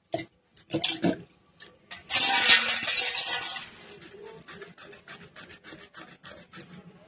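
Sponge gourd being cut on a foot-held curved kitchen blade (boti): a loud rasping scrape about two seconds in lasting a second and a half, then a quick run of small cutting clicks, about three or four a second.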